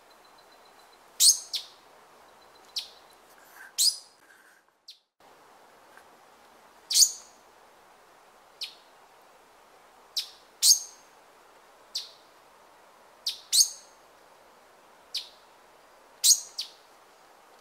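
Male black-cheeked gnateater giving short, sharp call notes, each a quick downward-sweeping chip, repeated irregularly every second or two and sometimes in quick pairs, over a steady background hiss.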